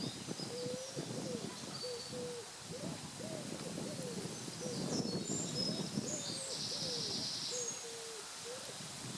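Birds giving a string of short, low hooting calls, about two a second, many notes rising and falling in pitch, with small birds chirping faintly higher up.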